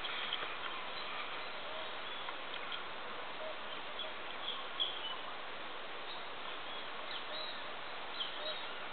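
Steady outdoor hiss with faint, scattered bird chirps.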